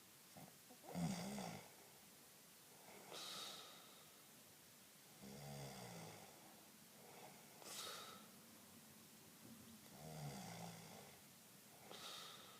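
Snoring: three low, rattling snores, each followed by a breathy, faintly whistling breath, about every four and a half seconds.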